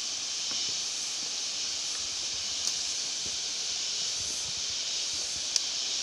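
Steady high hiss of tropical forest ambience, with two short sharp clicks: one near the middle and a louder one near the end.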